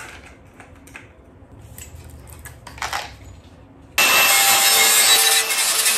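A few faint taps, then about four seconds in a cordless angle grinder starts suddenly and grinds the steel BMW E30 rear subframe down to bare metal: a loud, steady abrasive hiss with a constant hum from the motor.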